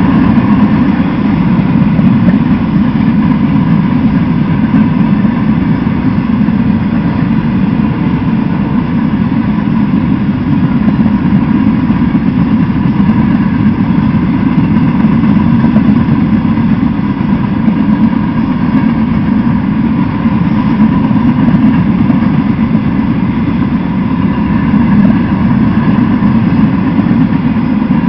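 Freight train of empty flatcars rolling past: a loud, steady rumble of steel wheels on the rails, with a thin steady tone running through it.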